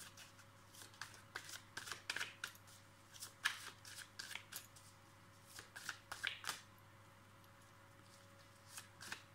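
A deck of divination cards being shuffled by hand: repeated quick, light card slaps and rustles in bursts, pausing for about two seconds near the end before starting again.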